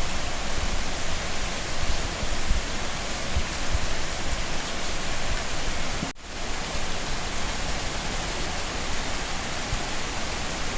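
Steady rain falling, a dense even hiss, with a brief drop-out about six seconds in.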